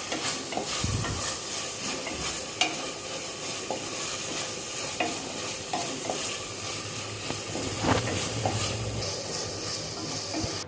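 Onions and ginger-garlic paste sizzling in hot oil in a pressure cooker while being stirred, with scattered short clicks and scrapes of the spoon against the pot.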